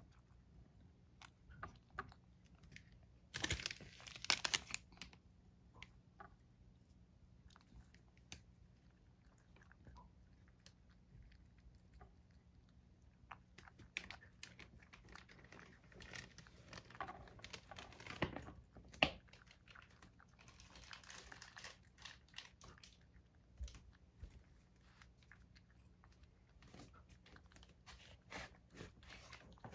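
Cat chewing and eating a snack of chopped carrot and shiitake with bonito flakes from a ceramic plate: faint, irregular crunching, licking and clicks against the plate. There is a louder cluster of clatter about four seconds in and another around seventeen to nineteen seconds in.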